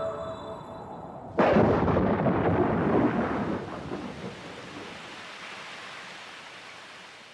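A sudden thunderclap about a second and a half in, rumbling and slowly dying away over the next several seconds.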